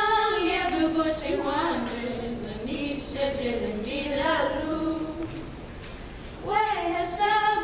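Women singing a song unaccompanied into a microphone, long held notes sliding up and down, with a brief break between phrases about two-thirds of the way through.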